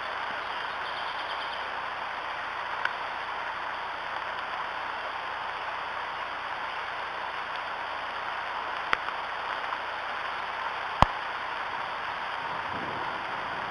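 Steady hiss of rain falling on the nest and the camera, with three sharp ticks, the loudest about eleven seconds in. A low rumble of thunder starts to build near the end.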